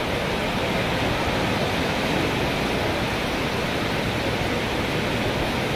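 Steady rushing noise of sea surf washing over a shallow, gently sloping beach.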